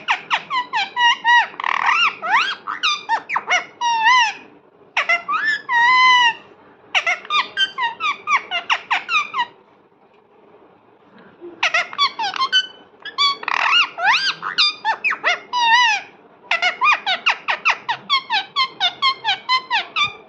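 Parrot calling in rapid strings of short, high-pitched notes, several a second, in bursts of a few seconds, with a pause of about two seconds near the middle.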